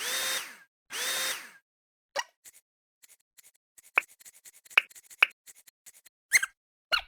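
Cartoon sound effects: two short whirring swishes, then a run of small scattered clicks with a few brief high squeaks.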